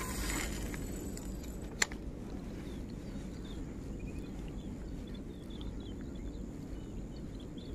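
Quiet outdoor ambience with small birds chirping here and there over a steady low rumble, and one sharp click about two seconds in.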